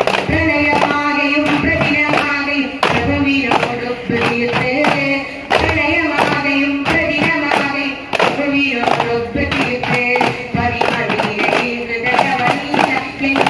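Duff muttu: duff frame drums struck together in a steady rhythm under singing of a devotional song in praise of the Prophet.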